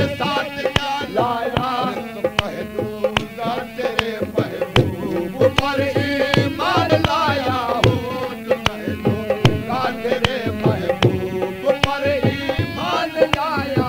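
Qawwali music: tabla playing a steady rhythm of sharp strokes under a wavering, gliding melody line, with no sung words.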